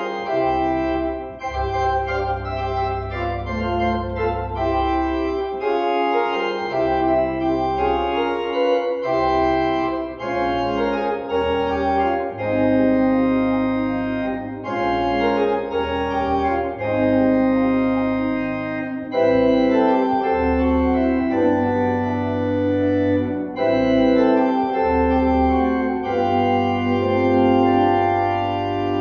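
Organ playing slow, sustained chords over low bass notes that change every second or two.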